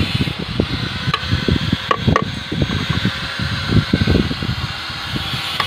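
Thin steel rebar being bent by hand around steel pins on a wooden jig to form a stirrup, with a few light metal clinks about one second and two seconds in. Under it runs a steady hiss and an irregular low rumble.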